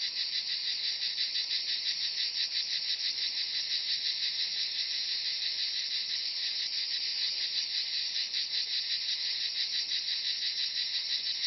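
Cicadas singing: a steady, rapidly pulsing high buzz.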